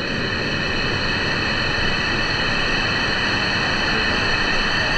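Steady rushing of a waterfall cascading into a plunge pool, a constant even roar of white water.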